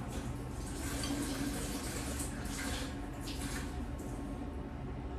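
Wet eating sounds: chewing a mouthful of thukpa noodles, then a fork and spoon stirring the noodles in broth in a glass bowl, with short wet smacks and splashes.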